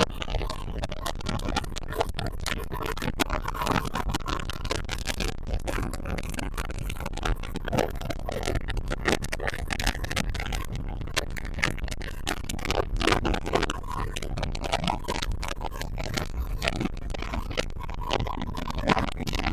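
Yamaha 200 VMAX outboard running a boat at cruising speed, mostly buried under wind buffeting the microphone, with steady rumble and irregular rough gusts.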